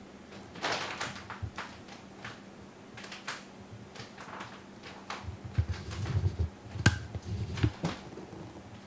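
A kitten clambering over a mini greenhouse's clear plastic cover and frame: crinkling and rustling of the plastic with scattered clicks and knocks. The knocks are heavier and thicker for a couple of seconds past the middle, with one sharp click among them.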